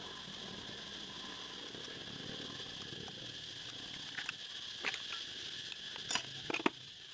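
A steady high insect drone, with a few light clicks and clinks from about four seconds in, likely from metal parts or tools being handled during the engine work.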